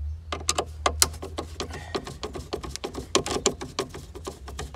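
Screwdriver turning a screw out of a car's plastic dashboard frame: a rapid, irregular run of clicks and scrapes that starts a moment in.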